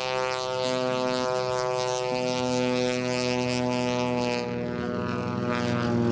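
Aerobatic biplane's radial engine and propeller droning steadily in a low pass, its pitch easing slightly lower near the end.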